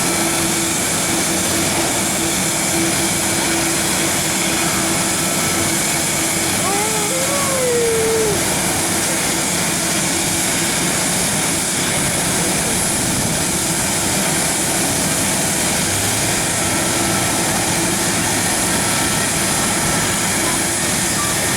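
Steady jet engine noise from an airliner at the airport, holding an even level with no clear rise or fall.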